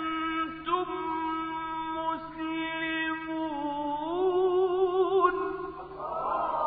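A male Qur'an reciter chanting in a melismatic style, holding long notes with a wavering vibrato, the pitch stepping up about four seconds in. Near the end the held voice stops and a brief noisy burst takes over.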